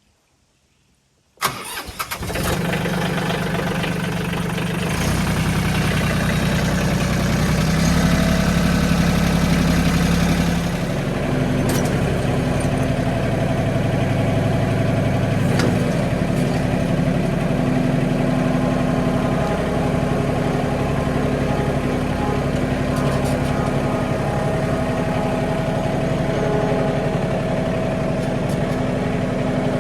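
Mahindra 1626 compact tractor's diesel engine starting about a second and a half in, running a little harder for several seconds, then settling into steady running.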